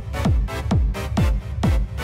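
Tech house music playing: a steady four-on-the-floor kick drum, about two beats a second, with off-beat synth chords and hi-hats between the kicks.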